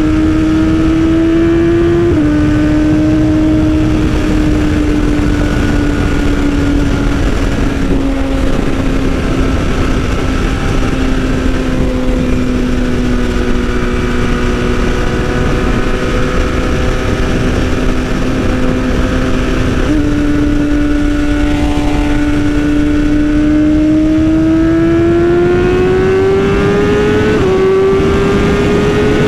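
2020 BMW S1000RR M Sport's inline-four engine through an Austin Racing exhaust, heard on the move. Its steady high note drops briefly with a shift early on and sags slowly under light throttle. About two-thirds through it jumps up with a downshift, then climbs as the bike accelerates.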